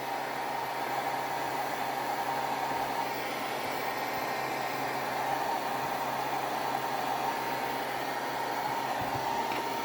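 Handheld blow dryer running steadily: an even rush of air with a faint steady whine, drying hair spray on a wig's lace hairline.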